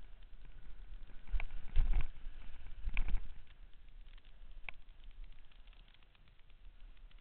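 Camera sliding over snow: a low rumble of wind and travel noise on the microphone, broken by clicks and knocks from the mount. The knocks bunch around two and three seconds in, then the sound settles quieter.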